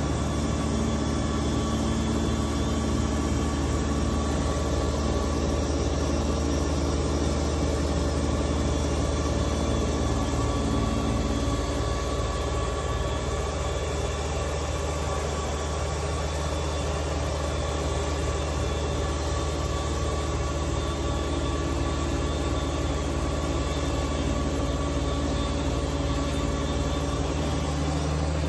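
Kubota BX2380 sub-compact tractor's three-cylinder diesel engine running steadily under load, driving a front-mounted Kubota BX2816 two-stage snowblower that is throwing snow.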